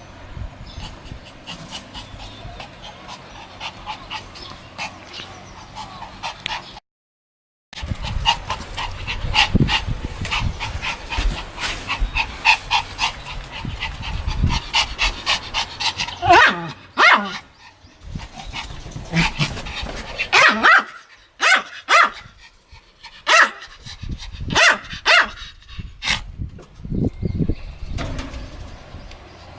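A Pomeranian barking and yipping in quick runs, with the loudest, sharpest barks coming singly in the second half. The sound cuts out completely for under a second about seven seconds in.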